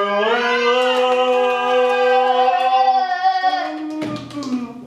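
A child singing one long held note for about three and a half seconds, which then drops in pitch and fades, with a few sharp clicks near the end.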